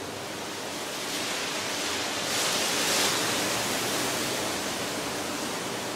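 Steady rushing, hissing noise that swells to a louder hiss about two to three seconds in, over a faint low hum.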